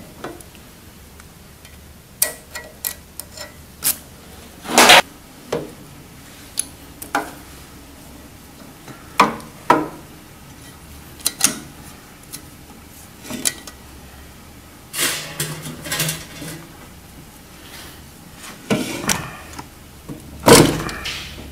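Scattered metallic clicks and clanks from a valve spring compressor working on a diesel cylinder head as the valves are taken out, with louder knocks about five seconds in and again near the end.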